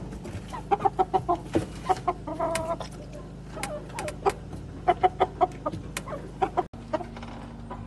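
Silkie chickens clucking: quick runs of short clucks with a longer call among them, thinning out near the end.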